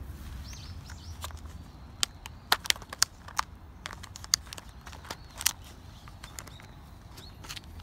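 A series of about ten sharp, irregular clicks, most between two and six seconds in, over a quiet outdoor background, with a few faint high chirps near the start.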